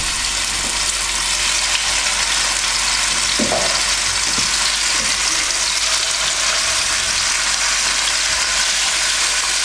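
Pieces of seasoned red meat frying in hot oil in a deep nonstick pan: a steady sizzle.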